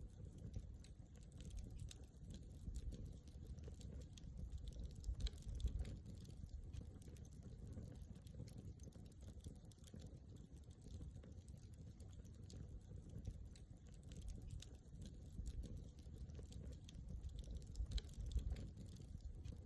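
Wood campfire crackling, with scattered small pops and snaps. Two sharper pops come about five seconds in and near the end.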